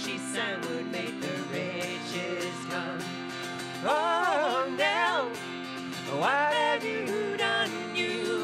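Acoustic folk music, with a melody that slides up and swells about four and six seconds in.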